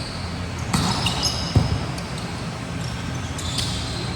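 Indoor volleyball game sounds: the ball is struck sharply twice, about a second apart, as sneakers squeak briefly on the court floor over the steady murmur of the hall.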